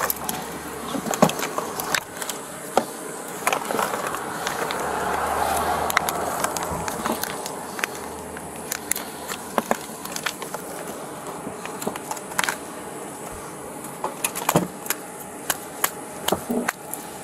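Handling noise: scattered clicks, taps and knocks of small items being moved about, with a swell of passing road traffic about four to seven seconds in.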